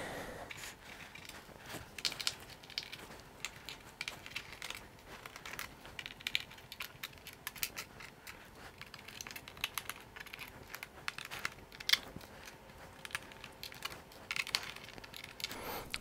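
Faint, irregular clicks and ticks of a small screwdriver backing out the small metal screws of a laptop's plastic bottom panel, with the loose screws being set down.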